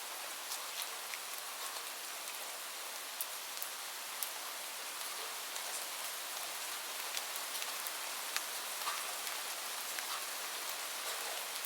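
Steady rain falling, a constant hiss with many individual drops ticking sharply on a surface.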